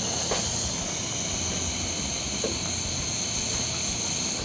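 Handheld gas burner torch running with a steady hiss.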